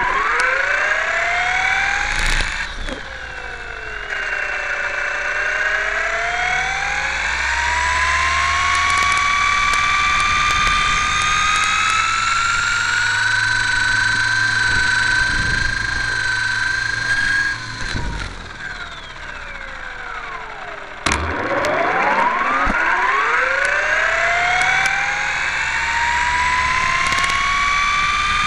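Radio-controlled model Hurricane's motor and propeller, heard close up from the model itself, revving up and down as it runs along the ground: a whine that climbs and holds high, drops sharply about two-thirds of the way in, then climbs again.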